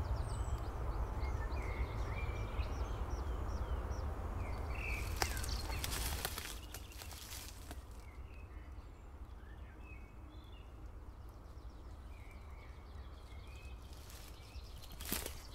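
Outdoor ambience: a steady low rumble with small birds chirping over it. The rumble drops away about six seconds in, leaving quieter, sparse birdsong, and a few clicks come near the end.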